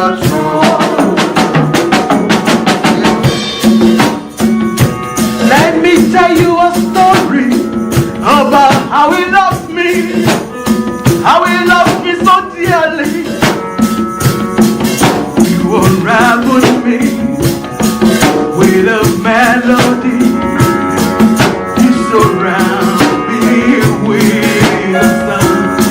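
Live church worship music: voices singing a slow melody over sustained keyboard chords, with steady drums and percussion.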